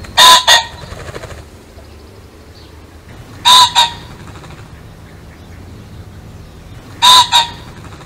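Pheasant crowing: three loud, harsh two-note calls about three and a half seconds apart, the first note of each the stronger. A faint steady background noise runs beneath them.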